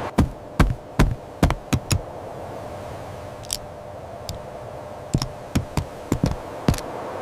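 A series of sharp, irregular knocks or clicks, several in quick succession in the first two seconds and again from about five seconds in, over a faint steady hiss.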